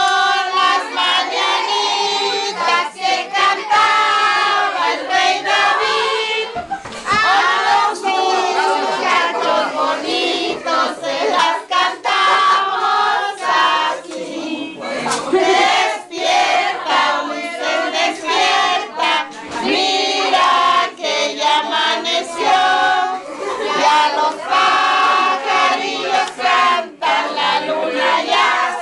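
A group of party guests singing a birthday song together in chorus, mostly women's voices, with hand clapping mixed in.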